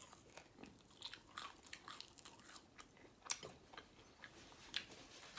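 Close-miked chewing of crispy KFC fried chicken: faint, irregular crunches and mouth clicks, with one louder crunch a little past the middle.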